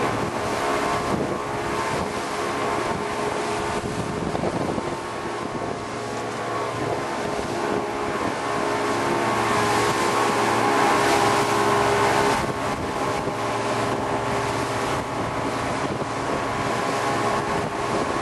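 Outboard motors driving a fishing boat at speed: a steady engine drone mixed with wind buffeting the microphone and the rush of the wake. The sound swells a little about ten seconds in, then drops back.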